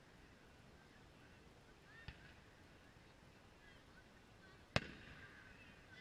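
Distant aerial firework shells bursting: a soft bang about two seconds in, then a sharper, louder bang near the end with a short echoing tail. Faint high chirps sound in the background.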